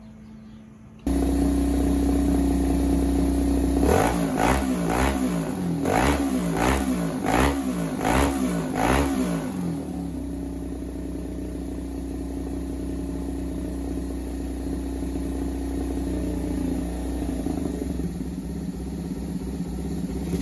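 V-twin motorcycle engine, its cylinder head sealed with an O-ring in place of the head gasket, running from about a second in. Between about four and ten seconds in the throttle is blipped in a quick series of revs, then it settles back to a steady idle.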